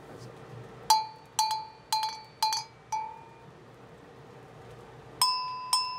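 Two handmade Sardinian metal bells shaken in turn by hand. The first, a dark uncoated bell, clanks five times about two a second. From about five seconds in, a brass-coated bell rings with a slightly higher, brighter tone.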